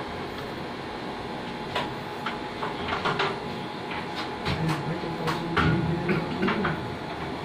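Steady equipment-room hum with scattered sharp clicks and knocks. Faint, muffled voices come in about halfway through.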